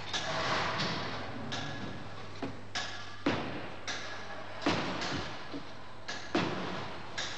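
A series of thumps and bangs on a crash-damaged car's body and door as it is pushed and kicked back into shape by hand and foot. The loudest knocks come about a second and a half apart in the second half.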